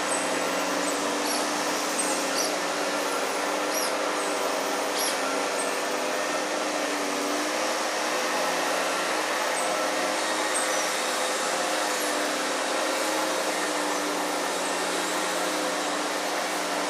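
Steady loud machine drone, a dense hiss with several held hum tones, the loud noise that disturbs the otters. A few short high chirps sound over it in the first five seconds.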